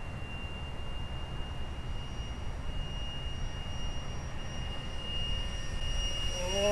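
Electric ducted-fan RC jet in flight, its fan a steady high whine that edges slightly up in pitch, over a low rumble. The sound cuts off suddenly at the end.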